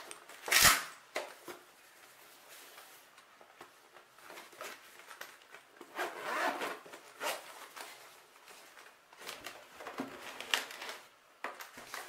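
Zipper on a padded fabric drone shoulder bag being pulled open, with rustling and scraping as the bag's flap is handled. A sharp knock about half a second in is the loudest sound.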